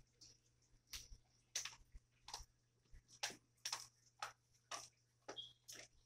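Parrot clambering on a PVC-pipe parrot gym: a faint, irregular string of sharp clicks and taps, about ten in all, as its beak and feet grip the plastic pipe. A brief high squeak comes near the end.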